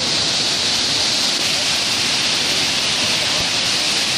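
Loud, steady rush of churning whitewater from a standing river wave, the river pouring through and breaking continuously.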